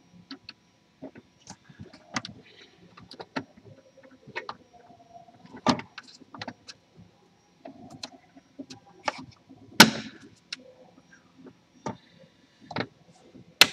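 Scattered, irregular light clicks and knocks over a faint low hum, with two louder knocks about six and ten seconds in.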